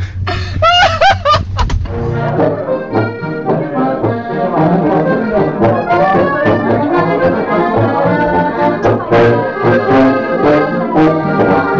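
A man laughing over low wind rumble for the first two seconds, then live folk music from a brass horn and an accordion, playing an upbeat tune with a steady beat.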